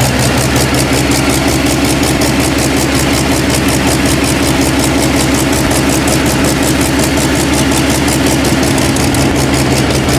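Rolls-Royce Griffon 37-litre V12 aero engine idling steadily on its short open exhaust stubs, loud and even throughout.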